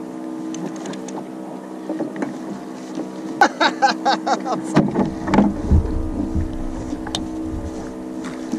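Steady drone of a boat engine idling, with a brief burst of a man's laughter about three and a half seconds in. Low wind rumble on the microphone in the second half.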